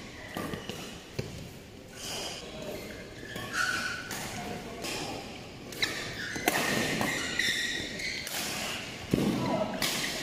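Badminton rallying on indoor courts: sharp knocks of rackets striking the shuttlecock and thuds of players' footfalls at irregular intervals, with short squeaks and voices from other courts.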